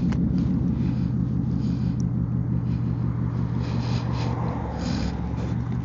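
Low, steady rumble of wind buffeting the microphone and road noise while riding an Emove Roadster electric scooter on a windy day.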